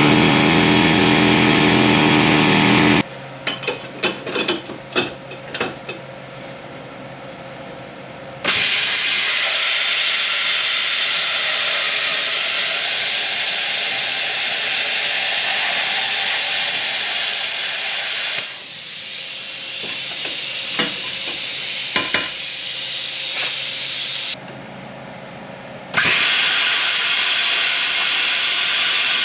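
Plasma cutter hissing in several long stretches as it cuts through a seized front wheel hub assembly, with crackling and clicks in the pauses between cuts.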